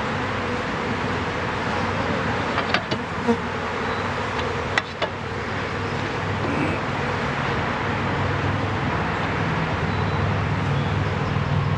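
A mass of honeybees from a package buzzing in a loud, dense, steady hum as they are installed into a hive. There are a few sharp knocks about three to five seconds in, and a low rumble builds near the end.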